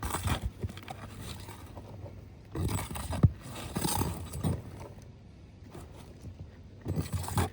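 Asphalt roof shingles being pried and scraped loose: rough scraping and tearing in three bursts, the middle one the loudest with a sharp knock.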